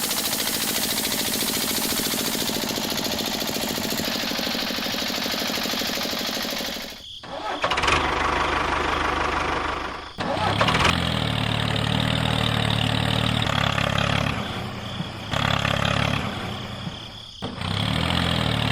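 Engine sounds in several edited segments. A dense, fast buzzing runs for about seven seconds and stops abruptly. After that a deeper engine note runs in stretches, broken by short cuts.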